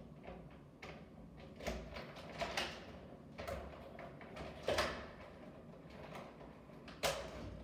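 Scattered knocks, clatters and rustling scrapes as a small chihuahua moves about in its wire crate, shifting its bedding, with the loudest knocks about two, five and seven seconds in.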